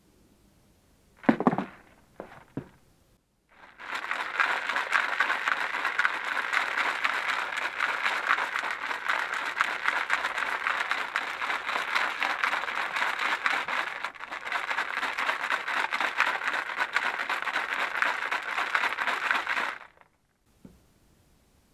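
A few knocks as the plastic coolant overflow reservoir is handled, then a long spell of fast, steady sloshing and rattling as it is shaken hard with water inside to rinse out the sludge, stopping suddenly near the end.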